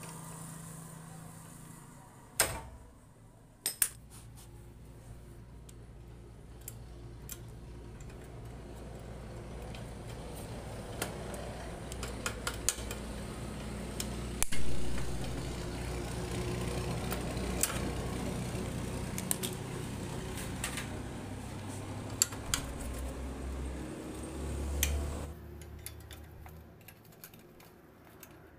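Scattered metallic clinks and knocks of hand tools against a motorcycle's rear wheel hub and drum-brake parts, with a sharp knock about halfway, over a low steady hum.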